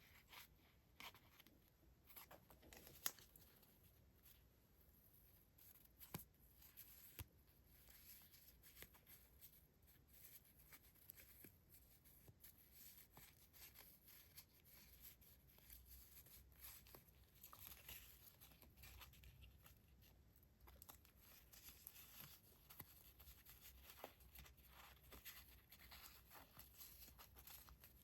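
Faint paper rustling and handling of paper stationery items and packaging, with scattered light taps and clicks, one sharper click about three seconds in.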